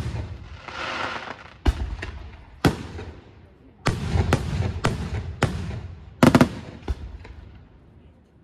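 Aerial firework shells bursting overhead: a quick series of about ten sharp bangs, with a hissing spell about a second in. The loudest, a double bang, comes about six seconds in, and the reports die away near the end.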